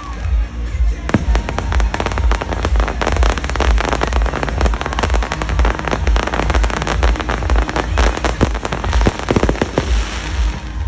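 Fireworks going off in a dense barrage of rapid bangs and crackles, starting about a second in and thinning near the end, over music with a pulsing bass beat.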